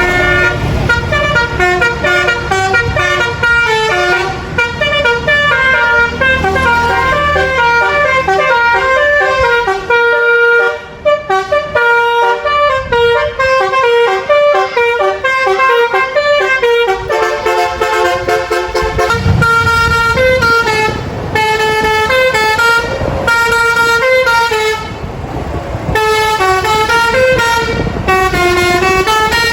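Bus's 'basuri' musical telolet horn playing a fast melody of short changing notes, with a low rumble underneath at times.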